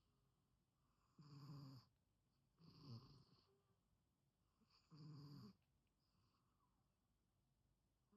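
A sleeping pet snoring faintly: three snores about two seconds apart, each a low rumble with a hiss above it, then a pause.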